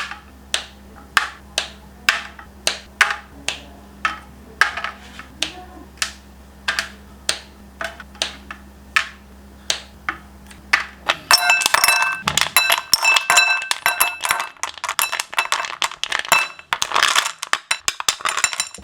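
Hard ginger candy pieces clicking sharply about twice a second. About eleven seconds in this gives way to a dense, fast clinking clatter of many pieces with a ringing tone, like hard candy jostled together on a tray.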